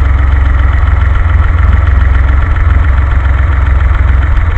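DeLorean's PRV V6 engine, converted to a carburetor, idling steadily up close.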